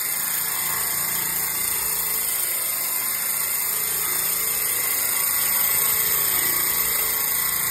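Homemade bandsaw blade cleaner running: an electric motor spins three cleaning wheels on a shaft that scrub a dirty sawmill bandsaw blade as it is fed through, a steady high hiss over the motor's hum.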